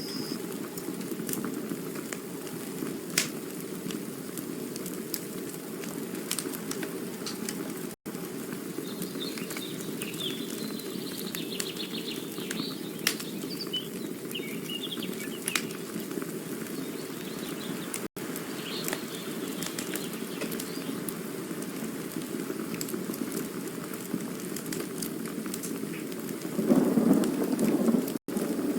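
Campfire burning with a steady low rushing hiss and scattered sharp crackles and pops. Near the end the fire swells into a louder, denser burst of crackling. The sound cuts out for an instant three times.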